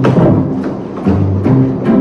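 Background music with sustained low notes and sharp percussive hits about every half second.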